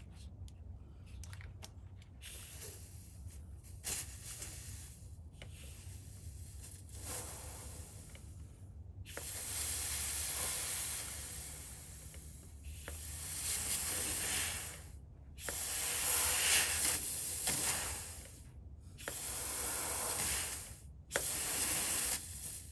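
Compressed air hissing in repeated bursts of one to three seconds, each cut off abruptly. The bursts are faint at first and much louder from about nine seconds in.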